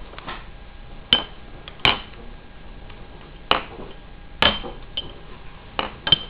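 Glass test tubes clinking as they are handled: about six sharp clinks, each with a short ring, spaced irregularly.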